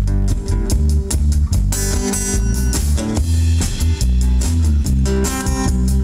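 Live blues band playing an instrumental passage: strummed acoustic guitar, electric bass guitar and a drum kit keeping a steady beat.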